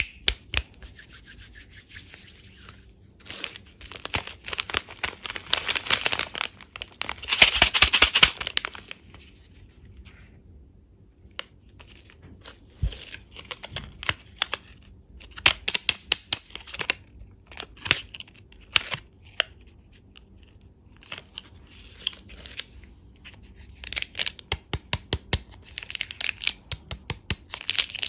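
Plastic candy packaging being torn open and crinkled, in irregular crackling bursts with sharp clicks and taps in between.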